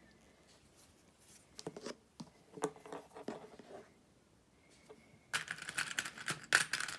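Elastic and fabric binding strips being handled on a cutting mat, with small plastic sewing clips clicking as they are snapped on. Scattered clicks and rustling come a couple of seconds in, then a denser run of them near the end.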